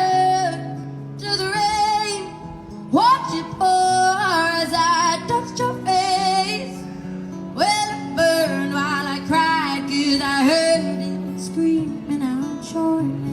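A woman singing a pop ballad over acoustic guitar, in phrases with swooping pitch slides and held notes.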